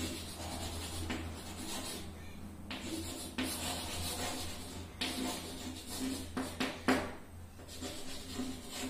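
Chalk scraping and tapping on a chalkboard as words are written out in a run of short strokes with a few sharper taps, over a steady low hum.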